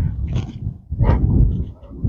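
A young retriever dog breathing hard close to the microphone, about one loud, rough breath a second.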